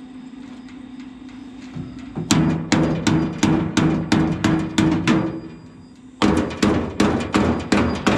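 Hammer blows on steel in two steady runs of about three strikes a second, each blow ringing briefly with a metallic tone; a pause of about a second separates the runs. A steady low hum runs underneath.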